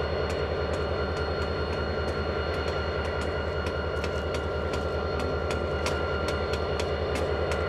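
Canadian Pacific diesel freight locomotives idling at a standstill: a steady low throb under a constant whine, with irregular sharp clicks two or three times a second.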